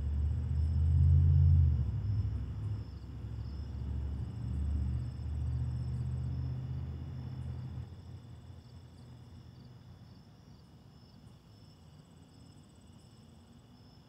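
Low engine rumble of a passing vehicle, loudest about a second in and dying away by about eight seconds. Steady chirping of crickets and other night insects runs underneath.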